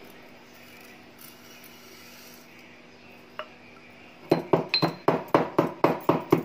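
Stone pestle pounding fenugreek seeds in a stone mortar to crush them coarsely: sharp, clinking knocks at a steady rhythm of about three a second, starting a little past halfway, after one light click.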